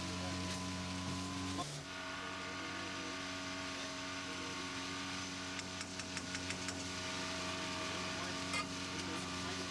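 Steady hum of a motor aboard a river raft. About six seconds in comes a quick run of light metal taps, a utensil against a cooking pot, and a single clink follows near the end.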